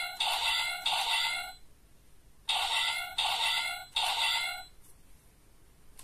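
Electronic standby loop from the DX Raising Sword toy's speaker: a short three-beat chiming phrase, repeated about two seconds later.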